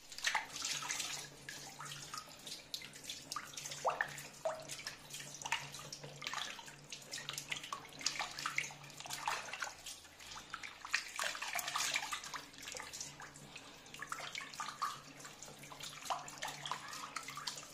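A hand swishing and stirring cut raw potato sticks in a metal bowl of water to wash them: irregular sloshing and splashing with small bubbling plinks.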